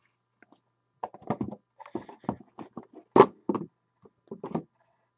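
Trading cards being handled on a tabletop: an irregular run of short soft taps and knocks, the loudest a little past the middle.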